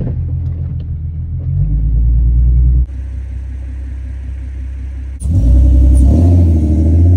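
Rumble of the V6 Mustang's engine and road noise heard inside the moving car, changing abruptly about three seconds in and again about five seconds in, with the engine pitch rising near the end.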